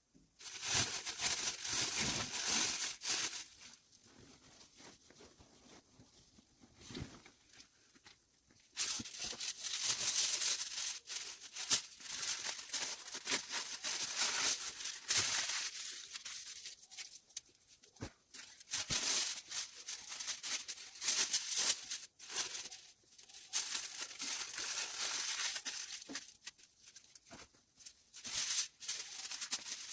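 Irregular rustling and crinkling with scattered small clicks, coming in spells of a few seconds with quieter gaps.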